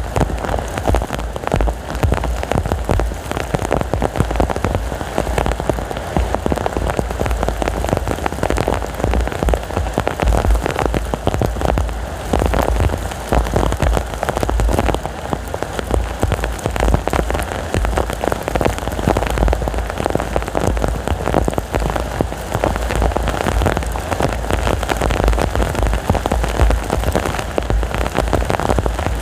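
Heavy rain falling steadily as a dense patter of drops, with strong wind adding a low, gusting rumble.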